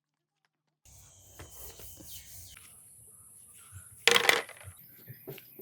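Near silence for about the first second, then small metallic clicks and one loud, short metal clatter about four seconds in, like small metal parts being dropped or handled.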